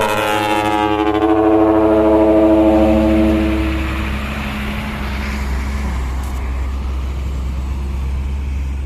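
A dump truck's multi-note trumpet air horn blowing a loud chord, its pitch sagging slightly, then fading out about four seconds in. After that the low rumble of the diesel truck carries on.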